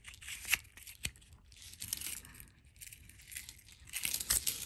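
A small knife and its sheath being handled: scraping, rustling and several small sharp clicks as the blade is worked into the sheath and its securing tab.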